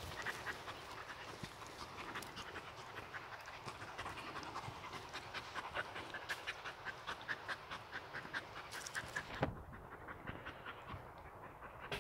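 Hunting dog panting hard and fast, about four breaths a second, after catching a muntjac. One sharp thump sounds about three-quarters of the way through.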